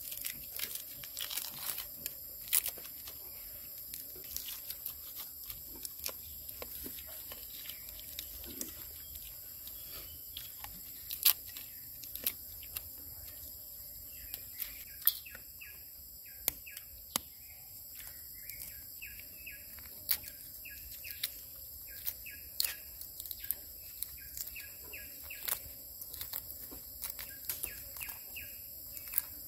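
Forest ambience: a steady high insect drone with birds chirping, in short repeated calls that grow busier in the second half. Scattered sharp clicks and knocks run over it, the loudest about 11 seconds in.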